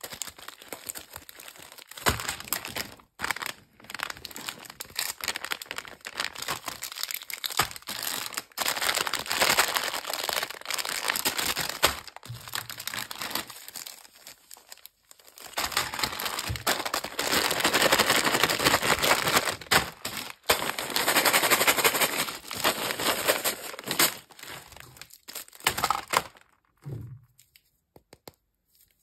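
Plastic candy wrappers crinkling and crackling as hands handle and unwrap sweets. It comes in long bursts with sharp crackles and short quieter gaps, and the loudest stretch is in the second half. It goes almost silent shortly before the end.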